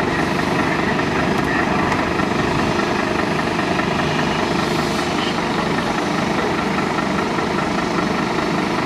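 Fire engines' diesel engines running steadily; the nearest, a Scania appliance hooked up to a hydrant with charged hoses, is driving its fire pump.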